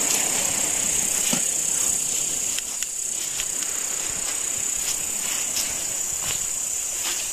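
Night insects, such as crickets, calling in a steady, unbroken high-pitched chorus over a constant rushing hiss, with a few faint clicks.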